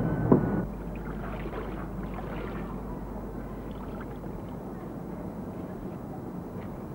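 Water sloshing and splashing in a plastic bucket as a cloth is scrubbed and wrung out by hand, heaviest in the first few seconds, over a steady hiss.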